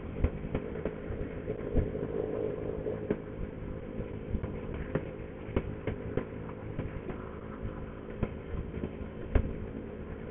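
Motorcycle engine running steadily while riding at low speed, with frequent short knocks and buffeting on the microphone.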